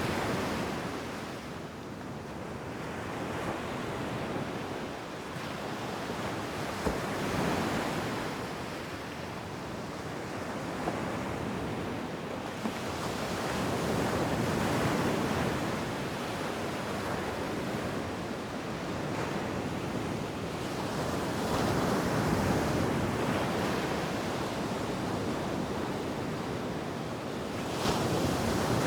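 Ocean surf washing onto a beach, waves swelling and receding in slow surges every few seconds, with some wind.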